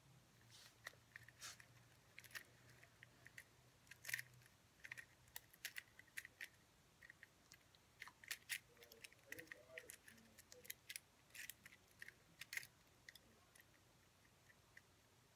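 Rubik's cube being turned by hand: faint, quick, irregular plastic clicks and clacks as its layers snap round, with a few sharper clacks among them.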